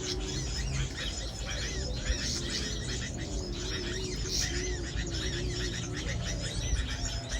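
Small birds chirping: short arched calls repeated over and over, over a steady low hum, with a low wavering tone underneath for part of the time.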